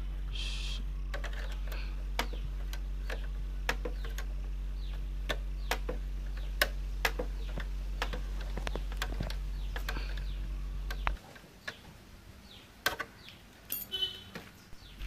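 Irregular light metallic clicks and taps of a spanner on the clamp bolt and fork tube as a motorcycle's front shock absorber is fitted and tightened. A steady low hum underneath cuts off abruptly about eleven seconds in.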